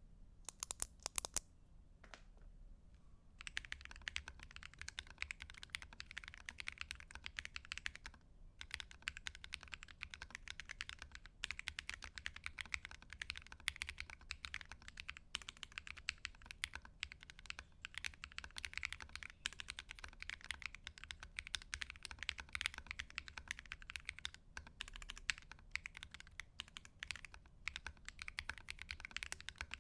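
Mechanical keyboard typed on while it rests on a fabric desk mat: a few loud keystrokes, a pause of about two seconds, then fast steady typing from about three and a half seconds in, with a brief break near eight seconds.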